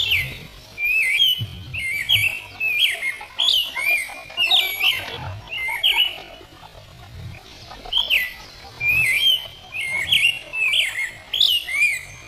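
Bird-like chirping: short, quick-gliding chirps repeated about twice a second, with a pause of a second or two midway.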